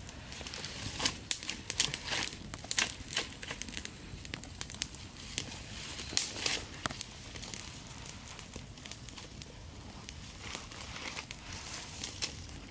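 Dry grass, leaves and sticks crackling and rustling as a fire is lit under a pile of bamboo and branches. There are many sharp snaps, thick through the first half and sparser after.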